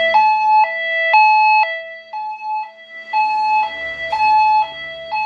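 Fire alarm speaker strobes playing a homemade tornado-alert tone made in Audacity: two pitches alternating in a hi-lo pattern, each held about half a second, with a short break partway through.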